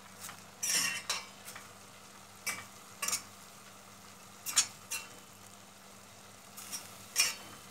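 A spoon stirring sautéed fern greens in a stainless steel pot, with short scrapes and clinks of metal on the pot at irregular intervals.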